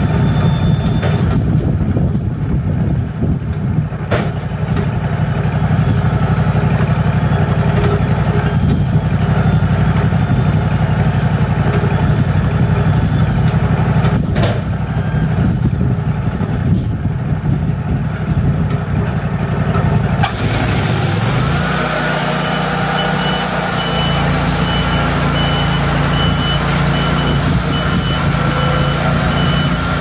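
Wood-Mizer LT40 sawmill's air-cooled engine running steadily. About twenty seconds in, a loud hiss starts suddenly and the engine note rises. Then a high beep starts repeating about one and a half times a second, like a backup beeper.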